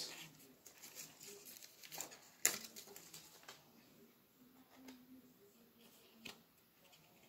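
Faint rustling and light taps of tarot cards and their cardboard box being handled, with a sharp click about two and a half seconds in and another about six seconds in.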